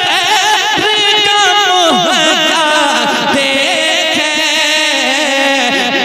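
A man singing a naat, Urdu devotional poetry, into a microphone in long held, ornamented lines whose pitch sways and wavers.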